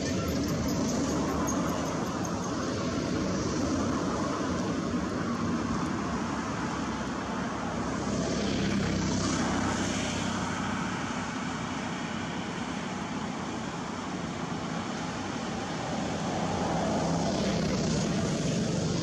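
Steady engine rumble of vehicle traffic, swelling a little about halfway through and again near the end.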